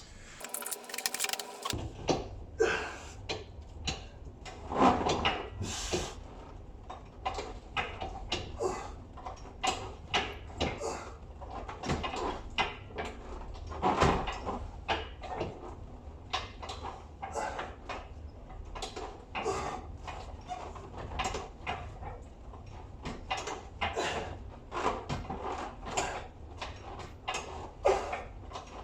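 Leg extension machine clicking, knocking and creaking over and over as repetitions are performed, with a low steady hum underneath.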